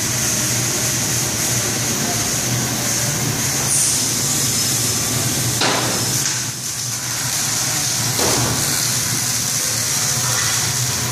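Steady machinery noise, a constant low hum under a high hiss, with a few short knocks.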